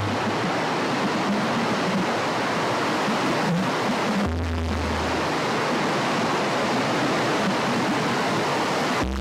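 Music made from a river recording, played back: a steady rushing-water wash. A deep low note comes in for about a second midway, and another starts at the very end.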